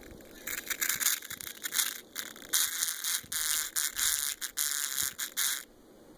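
Campark action camera's speaker playing back a video as harsh, crackling static that cuts in and out, a sign of its malfunctioning sound. It starts about half a second in and stops abruptly near the end.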